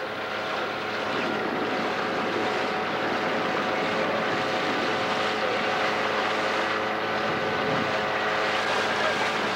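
Outboard motor of a coaching launch running steadily, a constant hum under an even hiss of water and wind.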